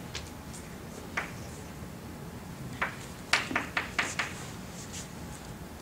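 Chalk tapping and scraping on a chalkboard as a line of math is written: a few scattered taps, then a quick run of about half a dozen near the middle.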